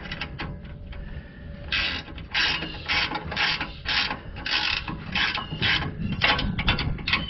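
Hand socket ratchet clicking in repeated strokes, about two a second, as it runs down the nuts on an exhaust pipe flange; quicker clicking near the end.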